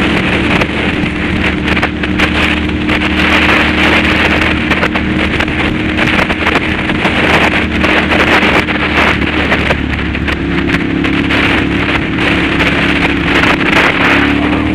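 Ducati Monster's V-twin engine running steadily while riding at road speed, its note shifting slightly about ten seconds in, under heavy wind noise on the camera microphone.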